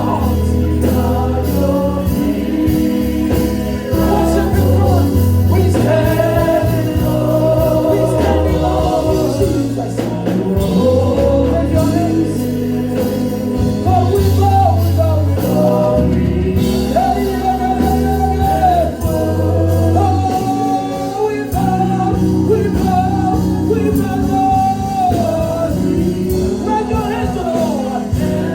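Gospel worship music: singing over a band with a steady bass line.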